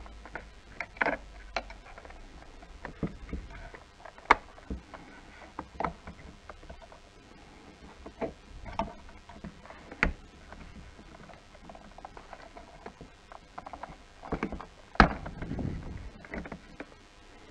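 Irregular plastic clicks, snaps and knocks from hands unclipping the trim and button pieces of a Mercedes W212 steering wheel, with the sharpest snaps about four, ten and fifteen seconds in.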